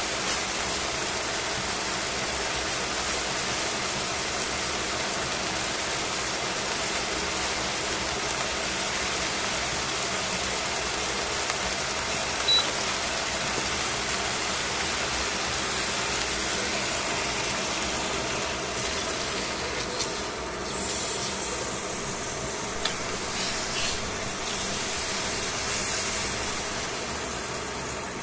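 Pork chops sizzling steadily in hot oil in a stainless steel frying pan, with a few brief clicks, more of them in the second half.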